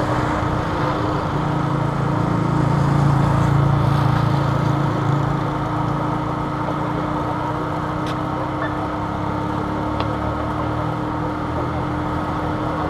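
Road traffic beside the course: a motor vehicle's engine swells and fades about two to five seconds in, over steady outdoor noise with a constant hum.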